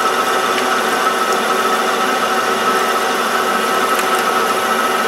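Small Chinese hobby metal lathe running at a steady speed, with a steady high whine from its drive.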